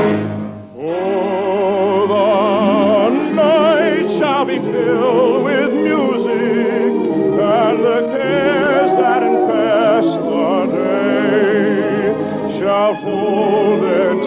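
Orchestra accompanying an operatic singer with strong vibrato, from an old radio broadcast recording. After a brief drop just under a second in, the voice comes in on a held note and the song goes on.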